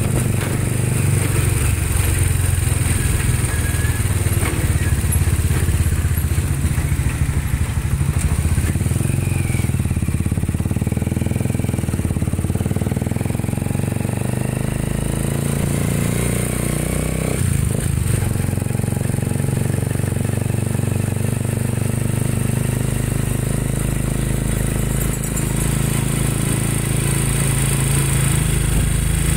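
Engine of the vehicle carrying the camera running steadily as it drives along a street, with a continuous low hum and road noise.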